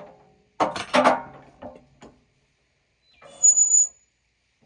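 Cant hook knocking and clanking against a maple log and the steel sawmill bed as it is set to turn the log: several sharp knocks with a short ring in the first two seconds. About three and a half seconds in comes a brief scrape with a high squeak.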